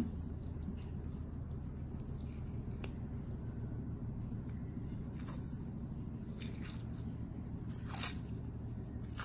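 Casing being peeled by hand off a raw sausage: soft, scattered peeling and rustling sounds, the loudest about eight seconds in, over a steady low hum.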